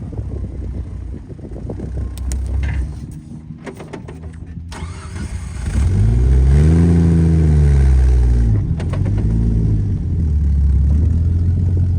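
Off-road vehicle engine revving up hard and falling back over a couple of seconds while climbing rocks, then pulling steadily under load. A few knocks and clicks come before the rev.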